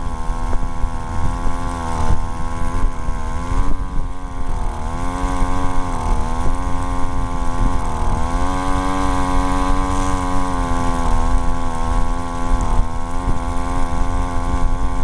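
25cc two-stroke weed eater engine driving a friction-drive bicycle at high revs, a high-pitched buzz. Its pitch sags and recovers a few times in the first half, then holds steady.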